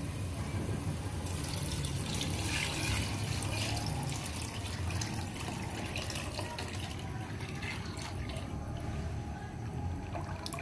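Thin kadhi batter of yogurt and gram flour poured steadily from a bowl into a pot of hot masala, splashing as it goes, over a steady low rumble.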